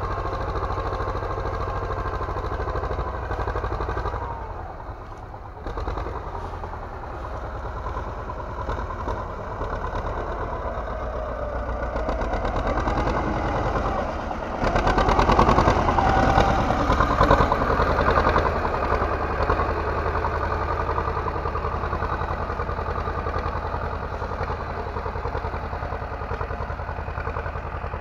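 T-25 Vladimirets tractor's two-cylinder air-cooled D-21 diesel engine running under load while pulling a plough. It is loudest about halfway through as the tractor passes close by, then grows gradually fainter as it moves away.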